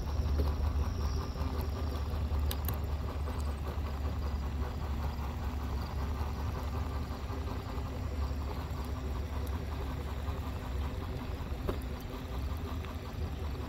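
Halo Rover self-balancing hoverboard rolling along a concrete path: a steady low hum from its electric drive and tyres, with a couple of faint ticks.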